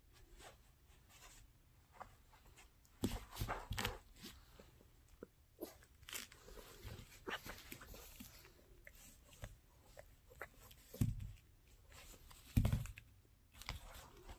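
Mini Goldendoodle puppy chewing and gnawing a knotted rope toy: scattered small crunching and clicking sounds, with a few louder thumps as it moves about.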